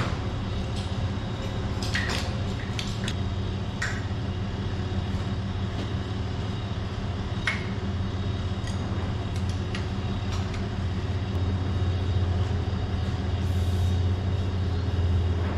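A steady low machine hum, a little louder near the end, with scattered light metallic clinks from hand tools working on a bare six-cylinder John Deere 4010 engine block.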